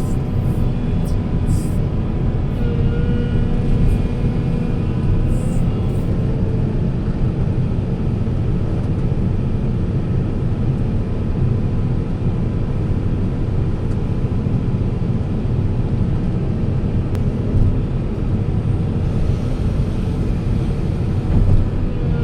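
Diesel engine of heavy earthmoving machinery running steadily under a constant low rumble.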